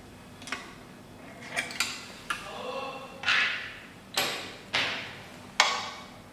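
Sharp metal clicks and clinks, about eight spread irregularly, some with a brief ring: a decoder probe being taken out of a SEC-E9 key cutting machine and a cutter fitted in its place.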